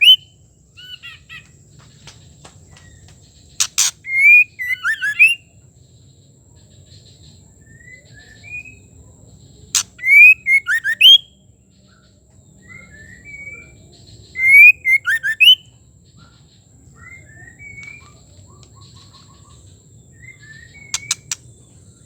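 White-rumped shama, the female, calling: three loud bursts of sharp clicks and quick whistled, gliding notes about five seconds apart, with softer scattered notes between them. A faint steady hum sits underneath.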